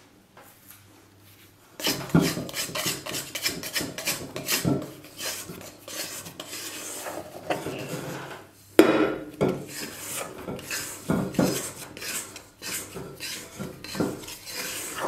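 Hands mixing flour and water into bread dough in a stainless steel bowl: rubbing and scraping of fingers through the flour and against the metal, starting about two seconds in, with a sharp knock against the bowl about halfway through.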